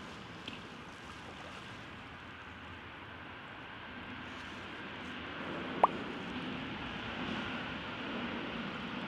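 Steady faint outdoor hiss with one short plop about six seconds in: a flipped jig landing in the water.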